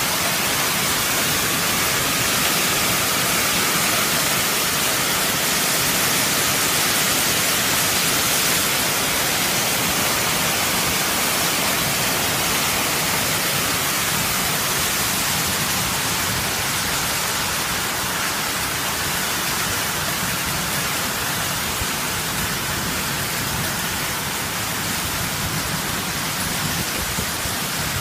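Hailstorm: hail and heavy rain driven by strong wind, pelting grass and tree leaves as a loud, steady, dense hiss.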